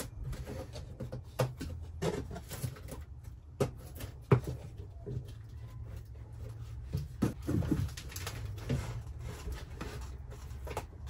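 Irregular clicks, clinks and knocks of hands working loose and handling the metal ceiling assembly of an RV rooftop air conditioner, over a low steady background rumble.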